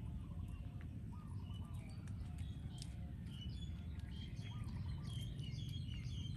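Small birds chirping in short, quick notes, thicker in the second half, over a steady low rumble.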